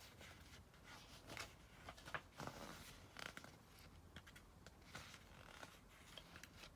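Near silence with faint, scattered rustles of a paperback book's pages and cover being handled.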